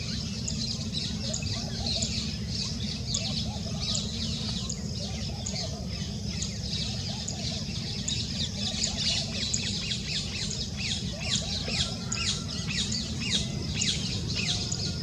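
A chorus of many small birds chirping rapidly and continuously, with short high chirps overlapping throughout. A steady low rumble runs underneath.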